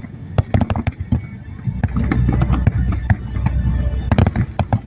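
Fireworks display bursting: a rapid, irregular run of bangs and crackles over a continuous low rumble, with a louder cluster of bangs about four seconds in.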